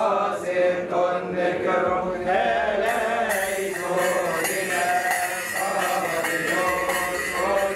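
Male voices chanting a Coptic Orthodox Easter liturgy hymn in long, drawn-out, wavering lines. A bright high shimmer joins about three seconds in.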